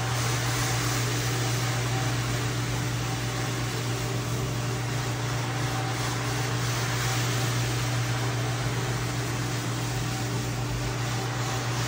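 A machine motor running steadily: a constant low hum with a few steady higher tones over an even rushing hiss.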